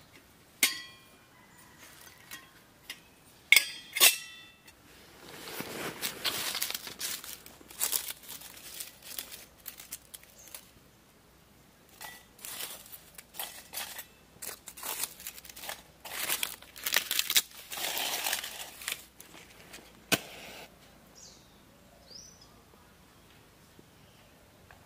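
Stainless steel camp cookware and stove parts clinking a few times with a short metallic ring. Then a long stretch of dry twigs and leaves rustling as sticks are fed into a portable wood stove, and quiet near the end.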